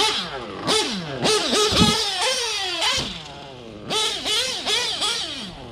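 Novarossi .25 two-stroke nitro engine in a TLR 8X-T truggy revving up and down over and over, its pitch rising and falling with each blip of throttle, with a brief lull about three seconds in. The engine is still on a rich break-in tune.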